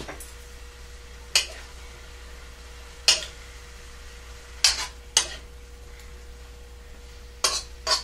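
A spatula stirring beef, peppers and mushrooms in a wok, scraping and knocking against the pan in about six sharp strokes spread through, over a faint steady hum.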